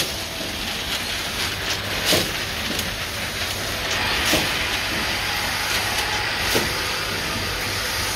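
Machinery on a cosmetics production line running: steady mechanical noise with a few sharp clinks and a stretch of hissing around the middle.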